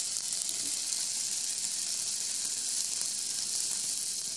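Bacon strips frying in a small nonstick pan on a portable gas stove: a steady high sizzle with a few faint pops.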